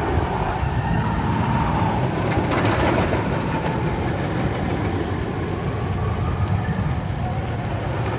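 Roller coaster train rumbling along its track, with a brief louder rush about two and a half seconds in.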